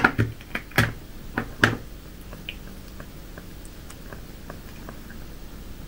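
Cat chewing dried stale bread, with a few sharp crunches in the first two seconds and then fainter, scattered chewing clicks.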